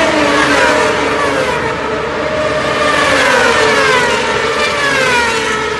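1000cc World Superbike racing motorcycles at high revs on the main straight: several engine notes overlap, each falling in pitch as the bikes go by.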